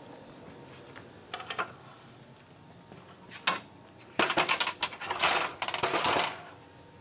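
Aluminium stepladder being handled and set up: a few light clicks, then a run of rapid metallic rattles and clanks in the second half.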